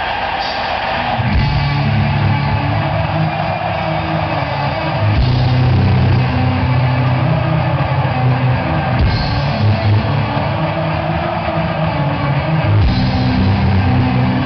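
Loud rock music with electric guitar and drums playing over a sonidero sound system, with heavy bass notes coming in about a second in.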